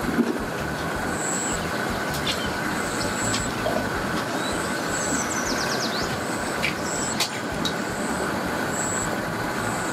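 Steady running of idling engines at a boat ramp, with a short high chirp repeating every second or two and a quick run of falling chirps about halfway through.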